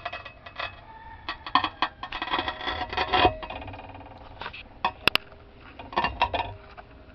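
Glass lab beakers clinking and knocking as they are handled: a run of sharp clinks and knocks, some ringing briefly, thickest in the first half.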